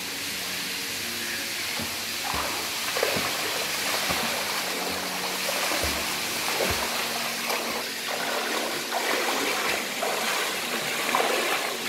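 Swimming-pool water splashing and churning as people swim, with a few low thumps from bodies moving in the water. Faint background music plays underneath.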